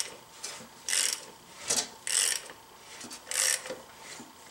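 A 1997 Toyota 4Runner's 3RZ-FE four-cylinder engine being turned over by hand, giving a tinny rattle in strokes a little over a second apart. The tinking comes from a timing chain that has come off and metal debris inside the failed engine.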